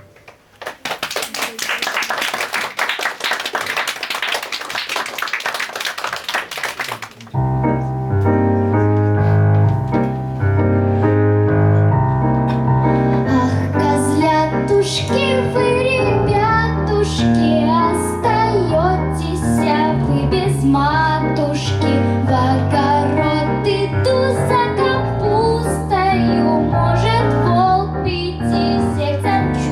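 Audience applauding for about seven seconds, then a song's instrumental introduction starts with a stepping bass line and melody over it.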